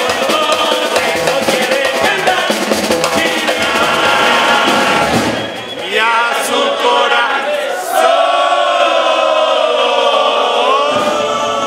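Uruguayan murga: a chorus of men singing together over a bass drum and snare drum. About halfway through the drums stop and the voices carry on alone in held harmony.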